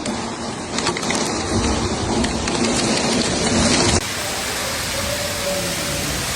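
Heavy storm rain pouring down with scattered sharp hits. About four seconds in the sound cuts abruptly to a steadier, slightly quieter downpour.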